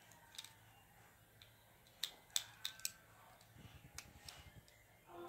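Small plastic clicks and snaps from a Bakugan toy figure as its hinged parts are worked in the hands, with a cluster of four sharp clicks about two to three seconds in and a few fainter ones around them.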